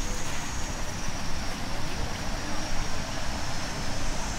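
Outdoor forest ambience: a steady high-pitched insect drone, typical of cicadas, over a continuous low rumble.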